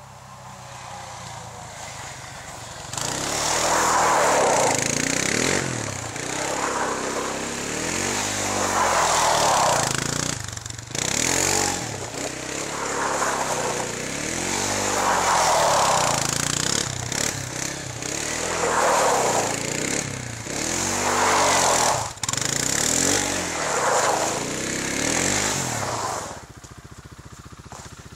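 Kymco Maxxer 300 quad's single-cylinder engine revving hard as the quad spins in repeated circles. The engine note rises and falls about every two seconds as it swings round. The engine comes in about three seconds in and falls back shortly before the end.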